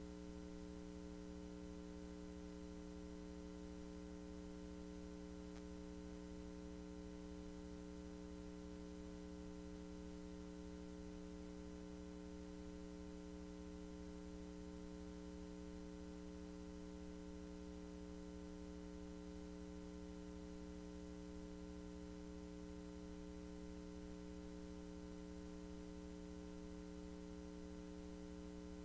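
Steady electrical mains hum: a low, unchanging buzz with several held tones, with no other sound.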